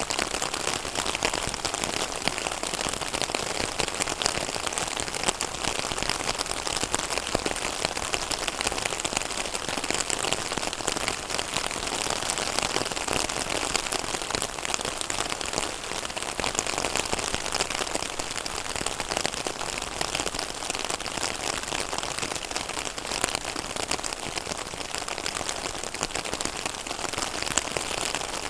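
Rain falling on a pond's surface: a dense, steady patter of countless small drops.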